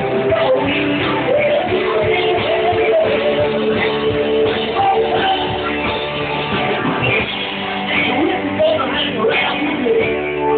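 Live rock band playing: electric guitar, drums and keyboard, with a singer, continuous and loud.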